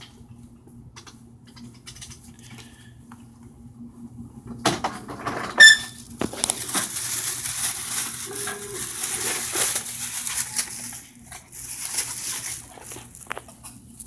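A phone microphone being handled and moved: a few sharp clicks and knocks, then several seconds of rustling and rubbing, over a faint steady hum.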